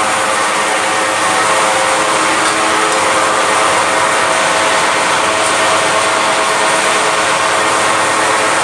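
Small blast furnace for lead-battery scrap in operation: a loud, steady rushing drone with several steady hums mixed in.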